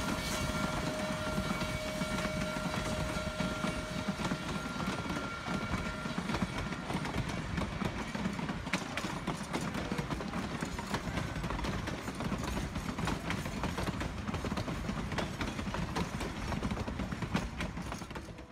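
Durango & Silverton narrow-gauge train rolling slowly past: a steady rumble of the cars with many sharp wheel clicks over the rail joints, most of them after the first few seconds.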